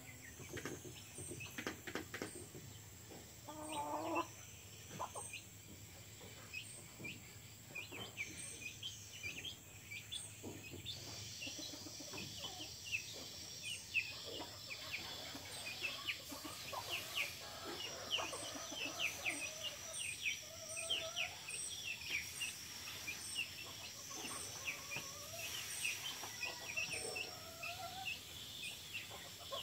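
A hen clucking now and then, low, while chicks peep in many short, high, falling cheeps.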